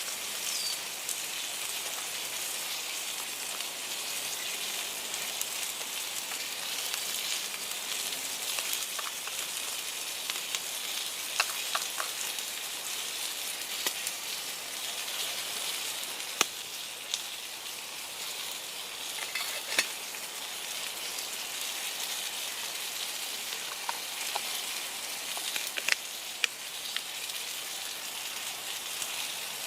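Steak frying in a mess-kit pan over a campfire: a steady sizzle with a few sharp pops scattered through.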